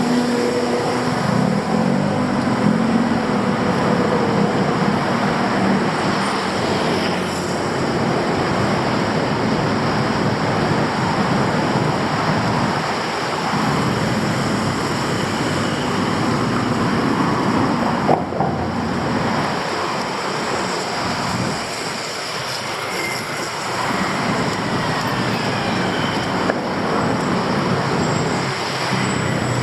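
Steady city street traffic noise from passing vehicles' engines and tyres, with one engine's hum standing out in the first few seconds and a single sharp click about eighteen seconds in.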